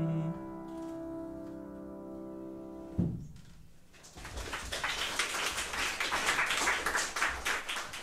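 Final chord of a grand piano song ringing out and fading, cut off by a soft thump about three seconds in. About a second later audience applause begins and carries on.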